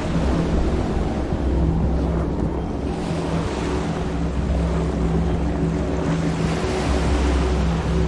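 Boat motor running at a steady speed with a constant low hum, under a rush of water and wind noise on the microphone.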